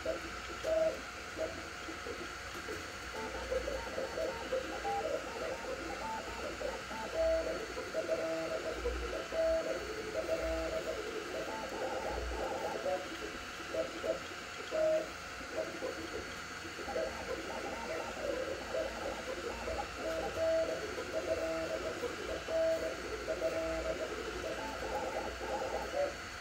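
Sapphire Plus CoreXY 3D printer printing at 130 mm/s: its stepper motors sing short, constantly changing tones as the print head darts about, over the steady whir of the cooling fans.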